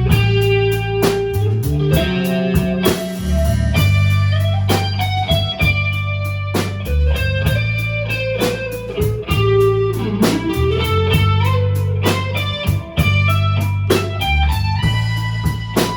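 Blues band playing an instrumental passage: an electric guitar plays single sustained notes with bends, over a bass line and a steady drum beat.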